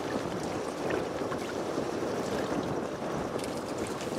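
Water sloshing and lapping against the hull of a small boat drifting at sea, an uneven steady wash.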